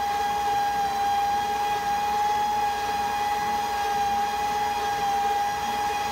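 Electric stand mixer running at a steady speed, beating pumpkin bread batter in its metal bowl, with a constant motor whine.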